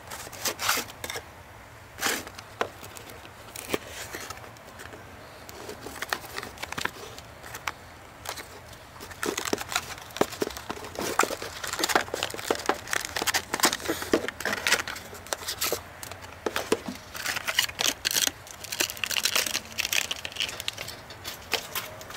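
Unboxing a model locomotive: a card presentation box and clear plastic tray and bag are handled, crinkling, with many sharp clicks and taps that are sparse at first and busiest in the second half.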